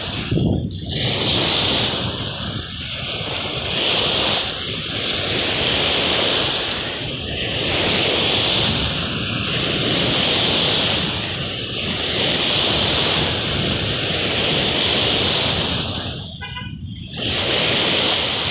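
Choppy lake waves washing and breaking against the shore, the sound of the water swelling and easing every couple of seconds.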